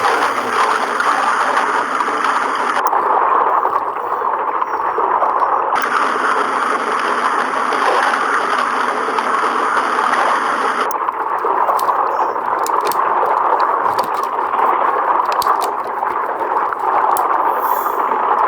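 Washing machine running a wash cycle: water sloshing and gurgling in the turning drum.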